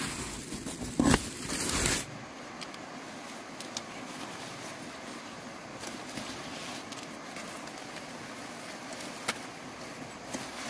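Rustling and handling of pumpkin vines and dry straw mulch as the vine tops are picked and cut, loudest in the first two seconds, with a sharp knock about a second in. After that, a steady outdoor hiss with a few small clicks.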